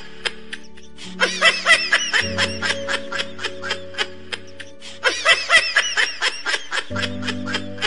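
Background music with a fast, steady beat over held bass notes that change every couple of seconds.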